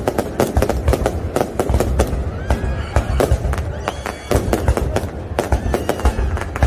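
Fireworks display: a rapid, irregular run of bangs and crackles from aerial shells over a steady low rumble, with a few short whistling glides in pitch.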